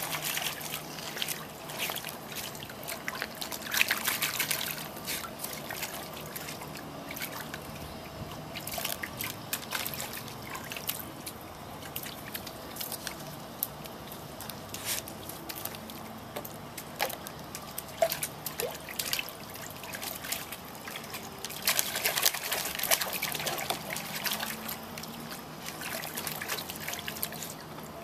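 Water from a garden hose trickling steadily into a plastic tub. A dog splashes in the water in two bouts, a few seconds in and again about three-quarters through.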